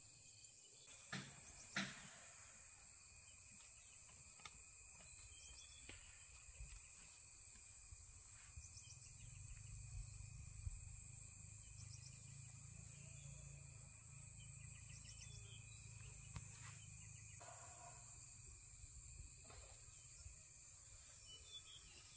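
Faint outdoor ambience of insects droning steadily, one high and one thinner steady tone, with occasional short bird chirps. Two sharp clicks sound about a second and two seconds in.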